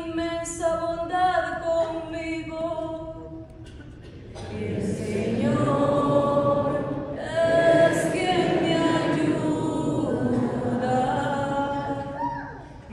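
Unaccompanied singing of a responsorial psalm: a woman cantor's solo voice, then from about four seconds in the congregation joins, singing together with her.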